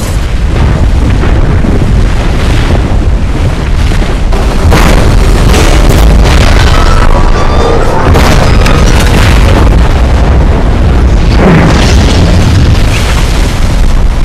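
Film sound effects of a train derailing in an avalanche: a loud, continuous low rumble with repeated crashes of metal and ice, under an orchestral score.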